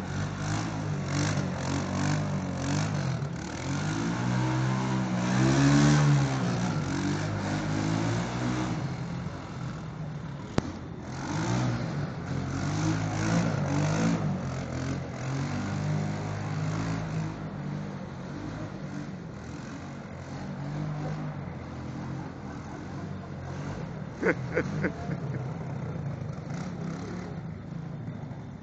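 Small quad bike's engine running and revving as it is ridden back and forth, its pitch rising and falling, loudest about six seconds in. A few short, sharp high sounds come near the end.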